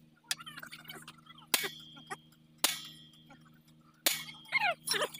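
Hammer blows on a steel drift bar set on the kingpin of a Hino EF750 truck's steering knuckle, driving the kingpin: four sharp metallic clangs about a second apart, each with a brief ring.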